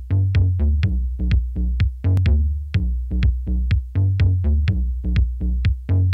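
Electronic background music with a steady, fast drum-machine beat over a heavy bass line.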